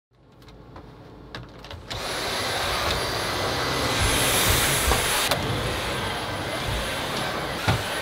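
A few light clicks and knocks, then about two seconds in a handheld vacuum cleaner switches on and runs steadily with a high motor whine.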